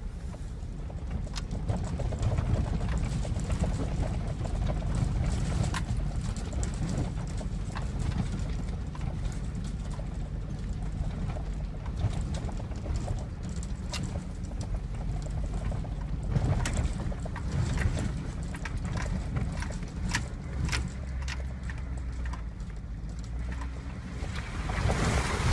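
GMC Sierra Z71 pickup's 5.3 V8 running with a low rumble as the truck crawls a rough woods trail in four-wheel drive, with frequent knocks and rattles from the body and suspension over bumps. Near the end a louder rush of noise comes in.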